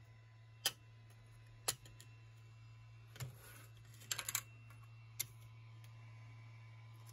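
3D-printed plastic gears clacking against each other and the printer bed as they are set down and stacked: a few single sharp clicks, with a quick rattle of several a little past the middle. A faint low hum runs underneath.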